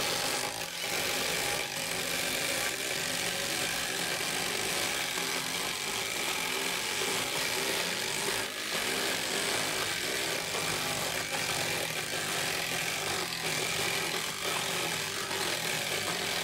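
Cordless 12-volt brushless impact drivers, a Skil and a Milwaukee M12 Fuel, driving decking screws into wood, several hammering at once in one continuous overlapping run with a few brief dips.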